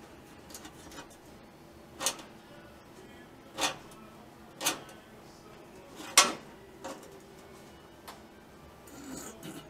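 Sharp, scattered clicks and taps of a metal straightedge and marking tool set down and handled on the truck's steel floor pan while a cut line is marked out, about half a dozen, the loudest a little after six seconds in, with a soft rubbing just before the end.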